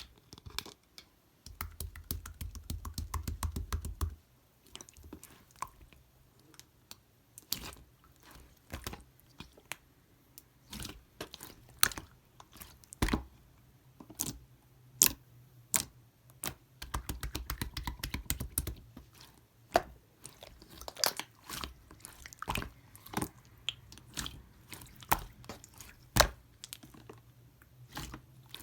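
Hands squishing and pressing clear green slime, with many irregular sharp wet clicks and pops. Two stretches of low rumbling handling noise come in, about a second and a half in and again past the halfway point.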